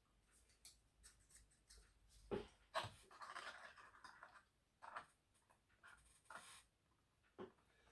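Faint handling of thin card model pieces: two light taps about two and a half seconds in, a short scraping, then scattered small ticks.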